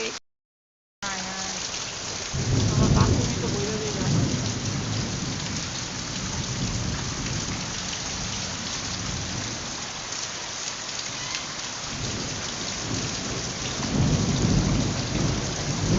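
Heavy rain pouring steadily during a thunderstorm, with thunder rumbling twice: once about two seconds in and again near the end. The sound cuts out completely for under a second near the start.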